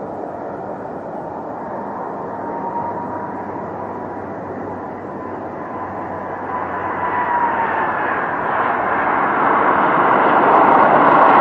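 Airbus A330 jet engines running as the airliner lands: a steady whine over the engine noise, dipping slightly in pitch about seven seconds in as the aircraft passes, with the noise growing steadily louder toward the end as it touches down and rolls by.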